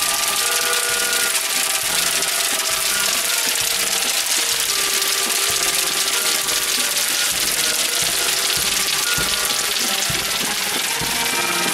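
Music with held notes that change every second or so, heard under a loud, steady hiss.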